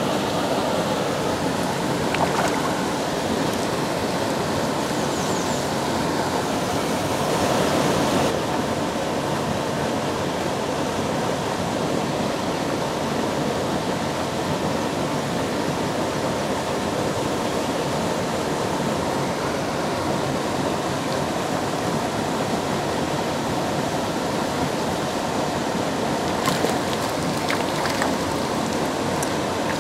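Steady rush of water pouring through a spillway, with a few light splashes at the surface near the end.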